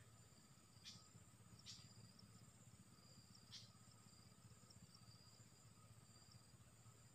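Faint, steady insect chorus of several continuous high-pitched tones. Three brief sharp chirps come about one, two and three and a half seconds in.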